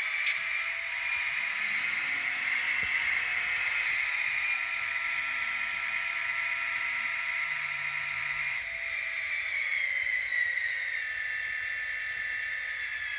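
An N scale sound decoder's recorded EMD 645 diesel engine sound for an SD40-2, playing through the locomotive's tiny speaker. The engine revs up about a second in, holds, then winds back down near the end.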